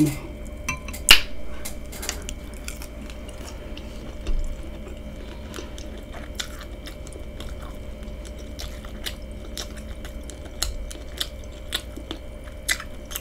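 A person chewing a mouthful of seafood-boil food, with irregular wet mouth clicks and smacks. The loudest is a sharp click about a second in.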